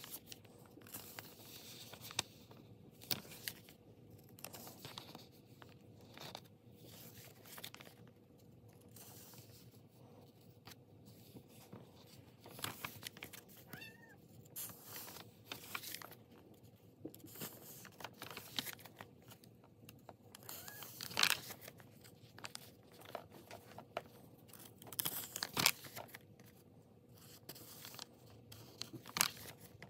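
Paint-covered sketchbook pages being handled and turned: intermittent paper rustling and crinkling with small clicks, and a few louder crackles about two-thirds of the way through.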